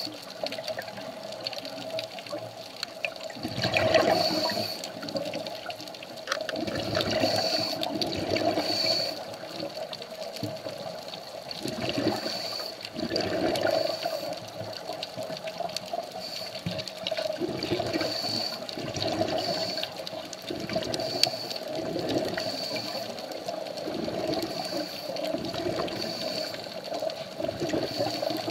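Scuba diver's breathing through a regulator underwater: exhaled bubbles rush out in swells every few seconds, over a steady faint hum.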